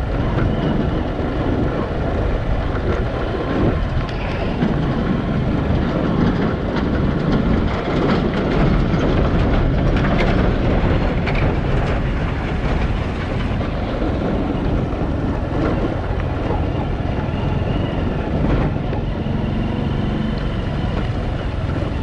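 A moving road vehicle: a steady rumble of engine, tyres and wind noise, with a few scattered knocks.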